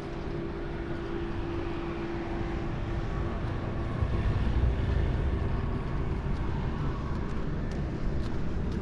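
Steady low rumble of vehicle noise, with a faint steady hum through the first few seconds.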